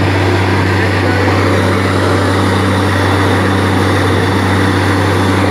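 Truck-mounted borewell drilling rig running at a loud, steady drone, with a constant rushing hiss as compressed air blows water up out of the bore.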